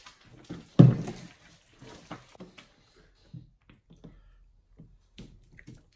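Sticky squelching and small clicks of a hand kneading glue slime packed with foam beads as liquid laundry detergent activator is poured in, with one loud thump about a second in.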